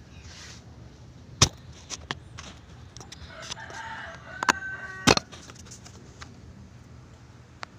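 Several sharp clicks and knocks, the loudest about one and a half and five seconds in, with a rooster crowing in the background between them.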